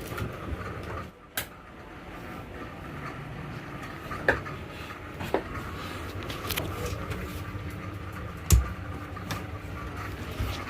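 Scattered clicks and knocks of things being handled, with a heavier low thump about eight and a half seconds in, over a steady low hum.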